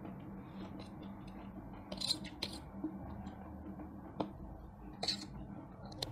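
Metal forks clinking and scraping against steel plates while noodles are slurped and chewed, in a few short separate bursts and clicks over a low steady hum.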